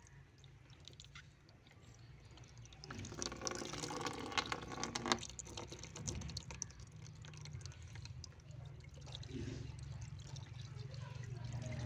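A thin stream of water pouring and splashing onto a water balloon in a plastic bucket, loudest in a spell of splashing about three seconds in, over a steady low hum.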